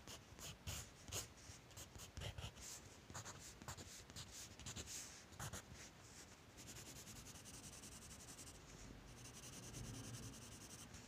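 Graphite pencil scratching on drawing paper. Separate, irregular strokes come first, then about six and a half seconds in the scratching turns steady and rapid as continuous shading.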